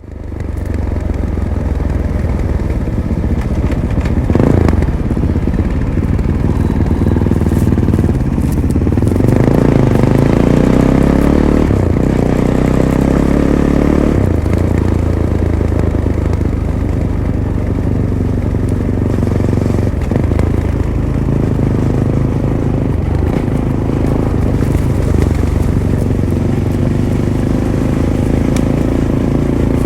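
Fantic Caballero 500's single-cylinder engine through its stock Arrow exhaust, running under way on a trail ride. From about nine seconds in it climbs in pitch in steps as the bike accelerates through the gears, then settles into a steady run.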